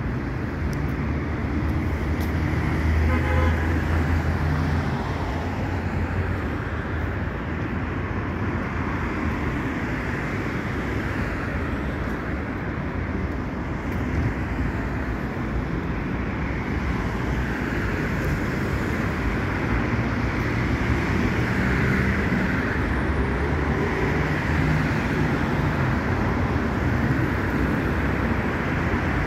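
Steady city road traffic: cars driving along a multi-lane street, a continuous noise of engines and tyres. A short pitched tone rises out of it about three seconds in.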